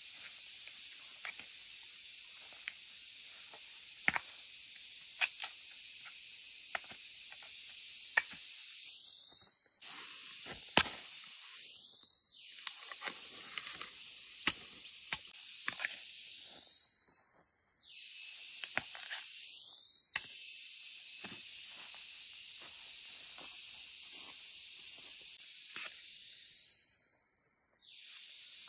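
Steady high-pitched hiss of outdoor rural ambience, broken by scattered sharp clicks and knocks; the loudest come about eleven and fourteen seconds in.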